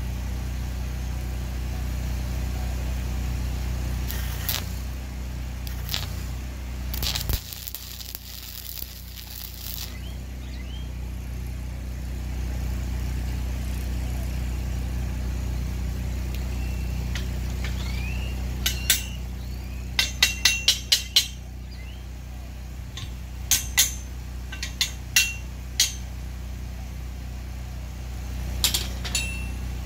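A steady low engine hum runs under stick-welding tack welds on steel: brief crackling arc bursts about 4 and 6 seconds in and a longer one from about 7 to 10 seconds. From about 19 to 26 seconds in comes a run of sharp, ringing hammer taps on the steel, with a few more near the end.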